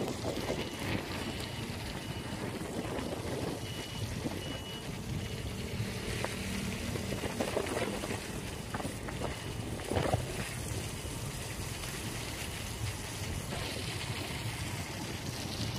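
Wind buffeting the microphone over the steady rumble and hiss of a rain-wet street, with a few brief knocks, the loudest about ten seconds in.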